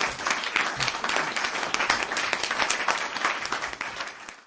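Audience applause: dense clapping that fades out near the end.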